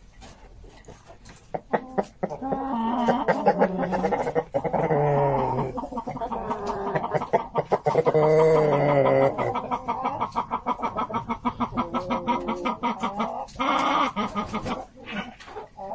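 Brahma chickens clucking and calling. Two loud, drawn-out calls come in the first half, followed by a run of quick clucks and one more call near the end.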